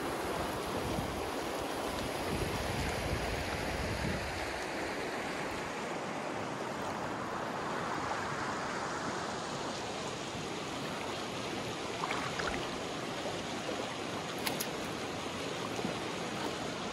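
Shallow creek running over a rocky bed: a steady rush and ripple of water.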